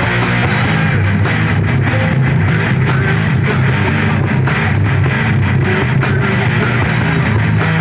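Live heavy metal band playing loud: electric guitar riffing over bass and pounding drums.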